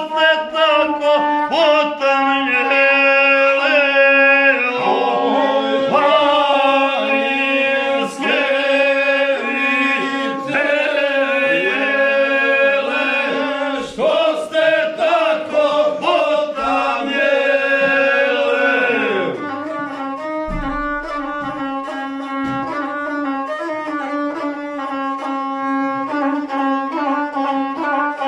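A man singing a Balkan epic-style song while bowing a gusle, the single-string folk fiddle, which gives a steady droning line under his voice. The singing stops after about nineteen seconds and the gusle plays on alone.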